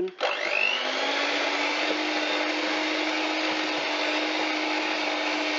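Electric hand mixer with dough hooks kneading yeast dough. The motor starts just after the beginning, rising in pitch as it spins up, then runs at a steady speed with a constant whine.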